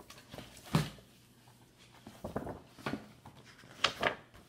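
A picture book being handled and its pages turned: a few separate sharp paper rustles and knocks, the loudest about three-quarters of a second in and again about four seconds in.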